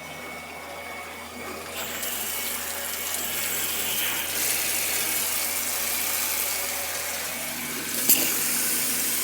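Water running steadily from a tap, starting abruptly and cutting off at the end, with one sharp knock about eight seconds in.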